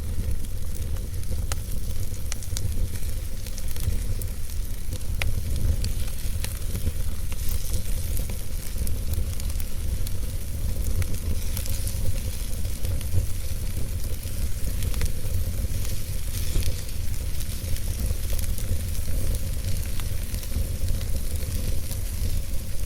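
Campfire burning: a steady hiss with scattered crackles and pops over a constant low rumble.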